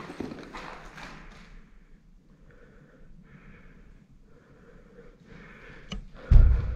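A person's breathing close to the microphone, a run of short breaths about a second apart, with a loud, low thump near the end.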